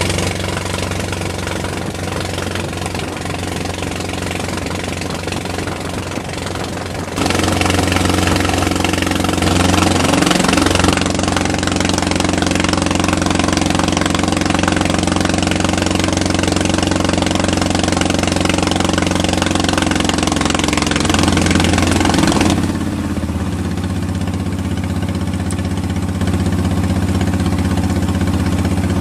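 A wooden boat's engine running steadily under way, over a hiss of wind and water. Its level and tone jump abruptly at about seven seconds and again at about twenty-two seconds.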